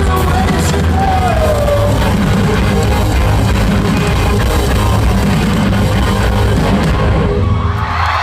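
Loud live rock band playing, heavy in the bass, as picked up by a phone in the audience; the music stops just before the end.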